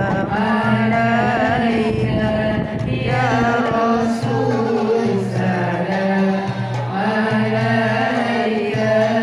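Salawat, an Islamic devotional chant praising the Prophet, sung as long, wavering melodic lines over a steady low accompaniment.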